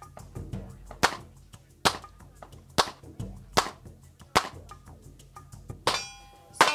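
A string of 9mm shots from a Glock 19X pistol fired at a steady pace, about one shot every 0.8 seconds, with fainter shots in between. A steady ringing tone comes in near the end.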